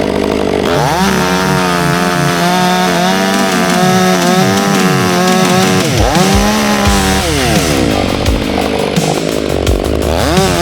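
Chainsaw cutting into a large log while roughing out a carving, its engine pitch sagging under load and rising again as the cut eases. The saw drops back briefly about six seconds in, then revs up again.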